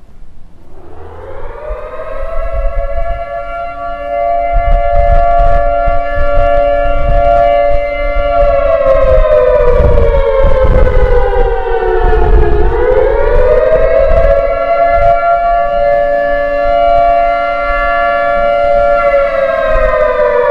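Outdoor emergency warning siren sounding a wail during a system test. Its pitch climbs over the first couple of seconds and holds, sinks slowly to a low point a little past the middle, climbs and holds again, then falls away near the end.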